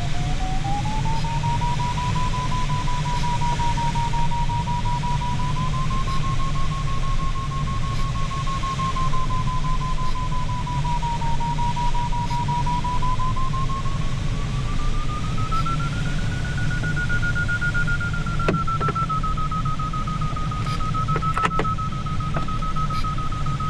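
Glider's audio variometer giving one continuous tone over steady cockpit air rush. The tone steps up in pitch, dips slightly about halfway, then climbs to its highest about two-thirds through and settles a little lower: the climb rate building in stages as the glider flies into a thermal.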